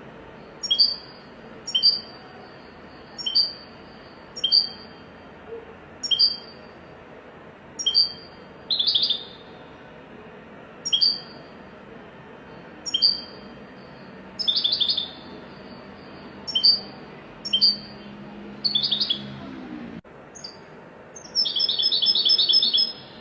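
Goldfinch calling: short, high calls repeated about once a second, broken by brief rapid trills, with a longer, louder trill near the end.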